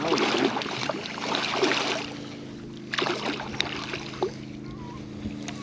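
A boat motor hums steadily, with two bursts of water splashing, the first over the opening two seconds and the second about three seconds in.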